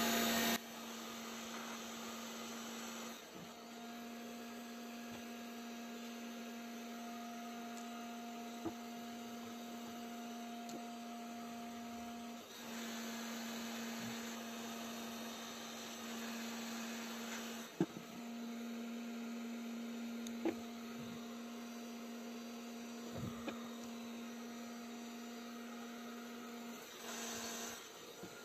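Steady electrical hum from a plastic-welding iron being pressed onto an ABS weld bead to heat and flatten it. The hum cuts out briefly a few times, with a few light taps.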